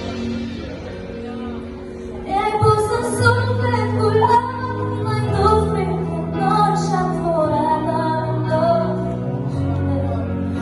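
A song with a female singer over sustained bass and instrumental backing, quieter at first and building fuller about two seconds in.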